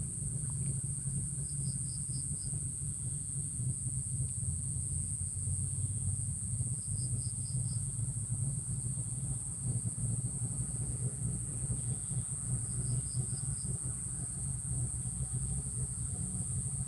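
Insects droning with a steady high-pitched buzz, with a short chirp of about four quick notes three times, some five to six seconds apart, over a low steady rumble.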